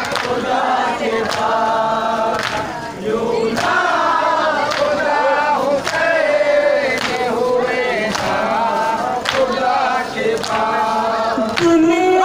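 A large group of men chanting in unison, with a sharp collective hand strike keeping time about once a second.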